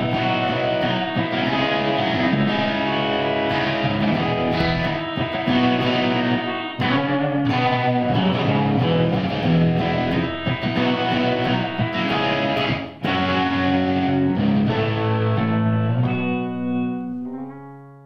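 Electric guitar playing a picked arpeggio figure with the open E string ringing against fretted notes. It ends on a held chord that rings out and fades near the end.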